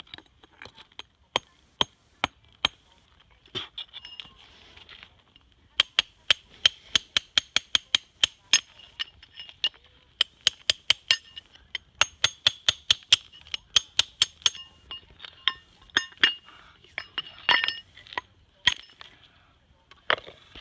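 A steel hammer striking a raw Kyoto natural whetstone (Okudo su-ita), giving sharp ringing clinks: a few spaced blows, then quick runs of about five strikes a second. The stone is being dressed by hammer, its ring heard to find and split off the weakly bonded layers.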